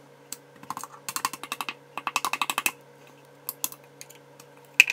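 Crushed ice and fruit pieces being dropped into a blender jar: quick runs of small clicks and clinks, about a second in and again about two seconds in, a few scattered clicks after, and a sharper knock near the end.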